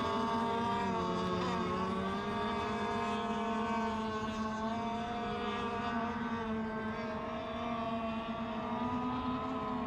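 Racing radio-controlled boats' engines running at high revs: a steady, high-pitched whining drone at several pitches that drift slightly up and down.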